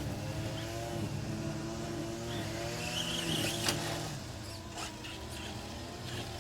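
Radio-controlled car's motor running with its pitch rising and falling as it is throttled on and off, with a sharp click a little past halfway.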